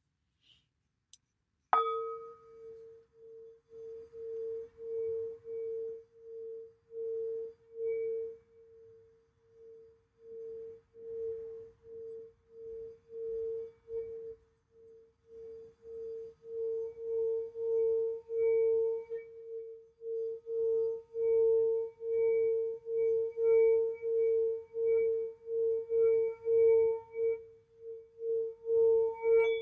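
A singing bowl is struck once about two seconds in. It then keeps sounding one steady tone that pulses in loudness about once a second and grows louder toward the end.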